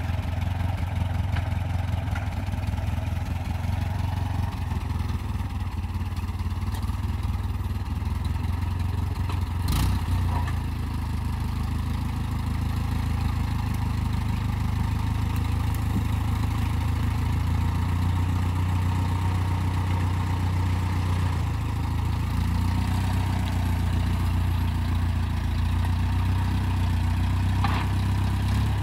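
Old farm tractor's engine running steadily as it moves a pine log held in its front-end loader. There is one sharp knock about ten seconds in.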